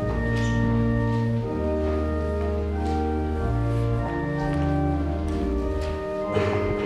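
Church organ playing slow music in sustained chords, each chord held for about one to two seconds before changing.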